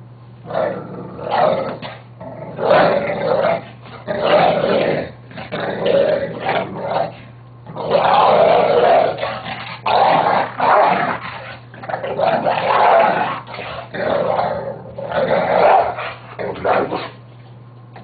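Dog growling over its bone in repeated long bouts as a hand reaches toward it: a resource-guarding warning.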